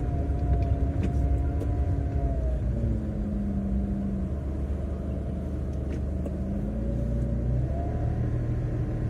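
Car engine running under low road rumble, heard from inside the cabin while driving. The engine note drops about three seconds in, then climbs again near the end as the car speeds up.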